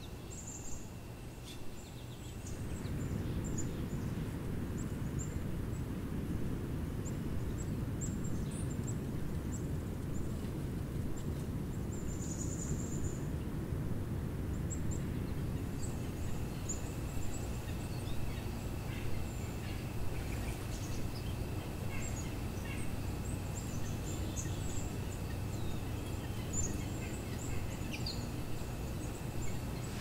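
Small birds chirping: many short, very high chirps scattered throughout, over a steady low rumble that sets in about two seconds in.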